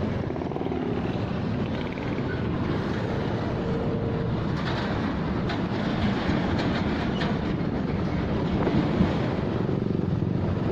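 Wind rushing over the microphone of a moving motorcycle, a steady rumble with road and traffic noise underneath.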